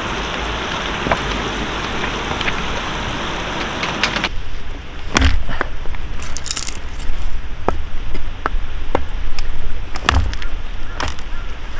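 A steady rushing noise for the first four seconds, then a small hatchet splitting firewood into kindling: a series of sharp, irregular wooden knocks, the heaviest about five and ten seconds in.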